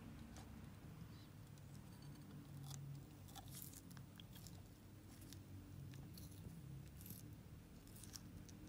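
Horsfield's tortoise biting and tearing leafy greens: a scatter of small, crisp crunches over a faint low hum.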